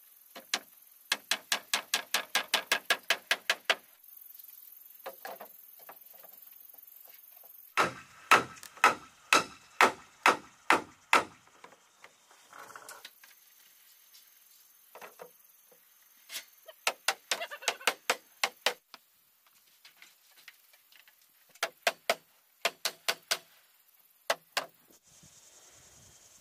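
Hammer driving nails into wooden wall-cladding boards: quick runs of light taps, about six a second, alternating with heavier, slower blows about two a second as nails are driven home.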